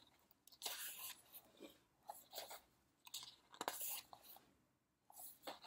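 Pages of a large photobook being turned by hand: paper rustling and flapping in a series of short, separate rustles.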